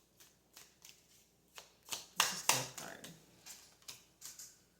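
A deck of tarot cards being shuffled and handled by hand: a run of short, irregular card flicks and slaps, with a louder cluster a little after two seconds in.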